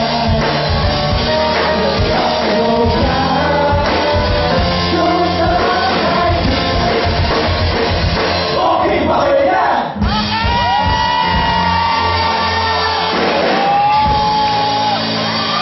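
Male vocal group singing into microphones over a live band with drums and keyboards. About ten seconds in the sound dips for a moment, then long held vocal notes that slide in pitch come to the fore.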